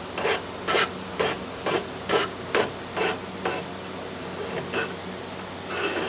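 Hand file rasping back and forth on the sharp corners of the piece to dull them, about two strokes a second. The strokes go lighter and sparser after about three and a half seconds.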